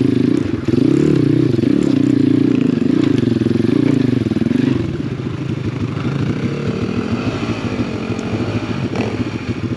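Apollo RFZ 125cc pit bike's single-cylinder four-stroke engine running under throttle, its pitch rising and falling as the revs change. About five seconds in, the engine sound turns quieter and rougher, with a rapid pulsing.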